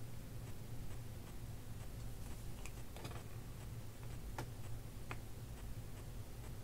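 Steady low hum with a hiss over it and a few faint, irregular clicks; no speech or music.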